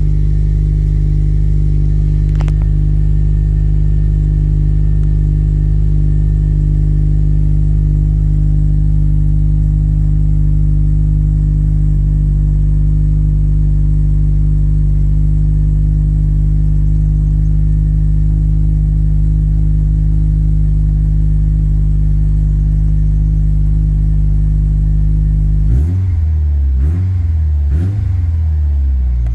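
Subaru EJ257 turbocharged flat-four, freshly rebuilt, idling steadily from the driver's seat, then given a few light revs of the throttle near the end.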